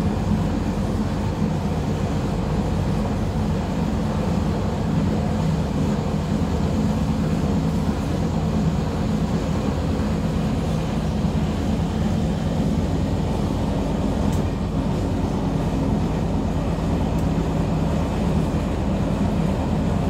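Steady running noise of a regional passenger train heard from inside the carriage: a constant low rumble of the train moving along the track.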